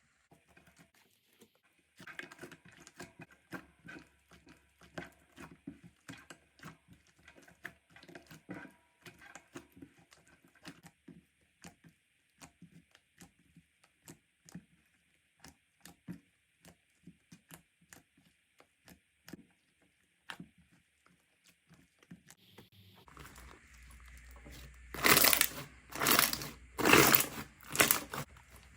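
Slime being worked by hand, giving a long run of small sticky clicks and crackles. About three-quarters of the way through the sound changes to a louder clip with about five loud squishing bursts, roughly one a second.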